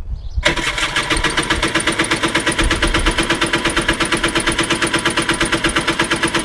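Yamaha 700 single-carb two-stroke twin jet ski engine cranked over by its starter for a compression test, with the other cylinder's spark plug out and the throttle closed. It gives a fast, even chugging beat that starts about half a second in. The cylinder under test reads 150 psi, in spec.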